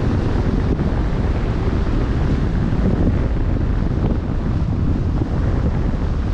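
Wind buffeting the microphone over a steady rush of open-ocean waves, heard from aboard a vessel under way.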